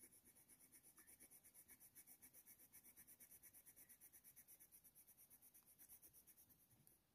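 Faint scratching of a Faber-Castell Polychromos coloured pencil on hot-press watercolour paper, in quick short strokes several times a second, dying away after about four and a half seconds.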